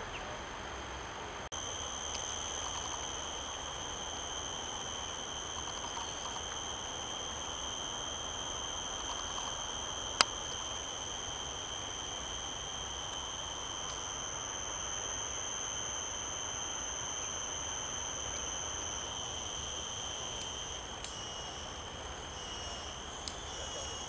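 Steady, high-pitched insect drone in forest undergrowth, breaking into a pulsing trill near the end. A single sharp click sounds about ten seconds in.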